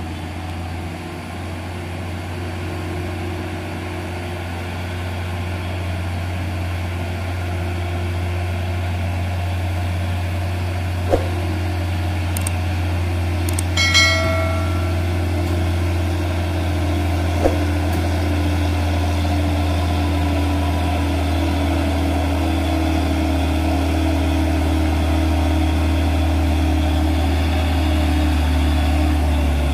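Hino truck's diesel engine pulling uphill, a steady deep drone that grows louder as the truck approaches. A brief high-pitched tone sounds about halfway through, with a few sharp clicks around it.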